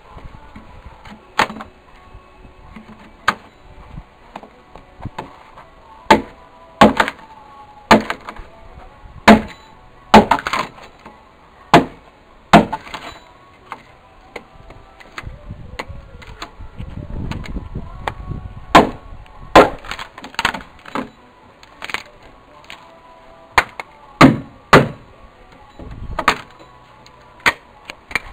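Hand axe chopping into a wooden log: sharp single blows at an uneven pace, roughly one every one to two seconds, as the log is hewn and notched.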